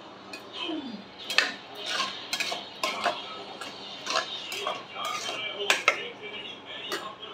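Metal ladle stirring thick cooked khichdi in a metal pressure cooker, clinking and scraping against the pot's sides in a string of irregular knocks that start about a second in.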